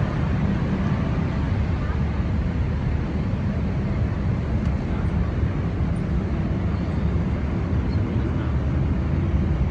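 Airliner cabin noise: a steady, loud low rumble of engines and airflow, with no breaks.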